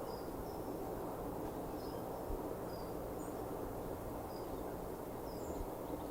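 Small birds giving short, high chirps, many scattered calls, over a steady low background noise.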